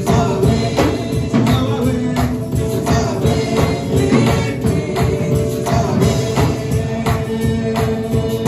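Upbeat church worship music: a band with a steady beat and a shaking tambourine, with singing.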